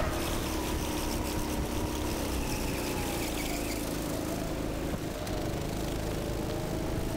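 Go-kart engine running with a steady drone, its pitch holding nearly level.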